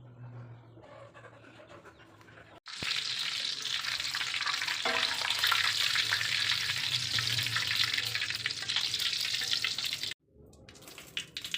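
Food sizzling in hot cooking oil as it fries, a dense crackling hiss that starts abruptly about three seconds in and cuts off suddenly near the end. It is preceded by a quieter stretch with a low hum.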